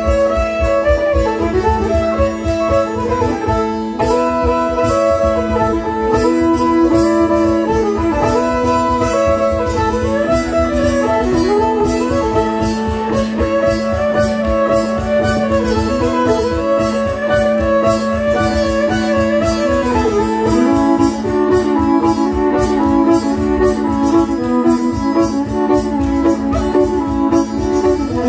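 Fiddle and mountain dulcimer playing together: the fiddle carries a winding melody over the dulcimer's strummed strings, which sound two steady drone notes.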